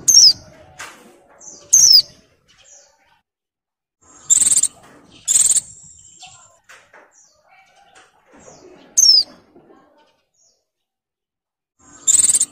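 A caged female white-eye (pleci) in breeding condition calling: about six short, high, sharp calls spaced a second to a few seconds apart, several sliding down in pitch. Faint rustling from the bird moving in the cage between calls.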